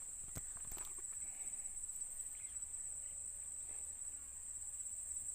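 Insects trilling in one steady, high, unbroken drone, with a few brief rustling clicks about half a second in.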